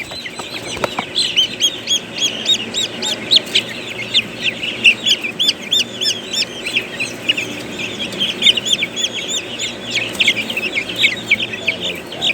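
A brood of chicks peeping all at once, many short high chirps overlapping without a break.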